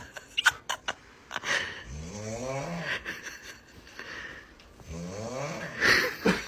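A sleeper snoring: two drawn-out snores about three seconds apart, each rising and then falling in pitch, with a few short clicks and breathy exhales between them.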